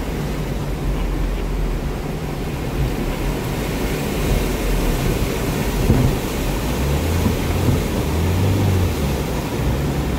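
Loud, steady rush of a fast, muddy mountain stream, the Pagal Nala, tumbling over boulders where it crosses the road. A vehicle's engine runs low underneath as it drives through the stream, its hum growing stronger in the second half.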